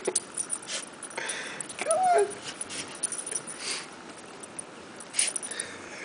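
A puppy sniffing with its nose in deep snow, with a few short sniffs and a brief whine that rises and falls about two seconds in.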